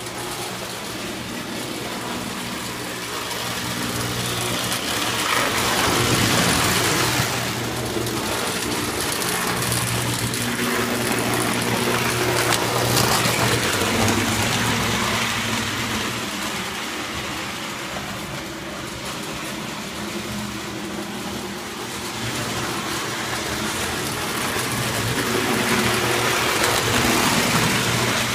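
O-gauge tinplate model train running on three-rail track: a steady motor whir with wheels clattering and rattling on the rails. It swells and fades several times as the train comes close and moves away around the layout.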